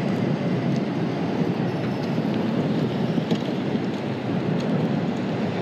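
Wind buffeting the microphone: a steady rushing noise with no clear pitch.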